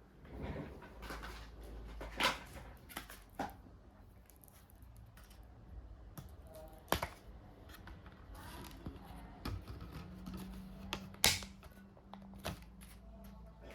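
Irregular sharp clicks and taps of hands handling a laptop's small plastic and metal parts, with a few louder snaps, over a faint low hum.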